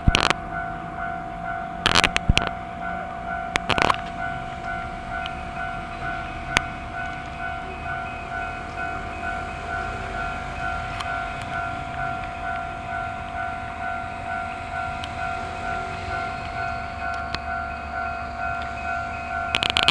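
Japanese level-crossing warning alarm ringing, an even, repeating electronic bell tone, with a few sharp knocks near the start and end and a low rumble building in the last few seconds.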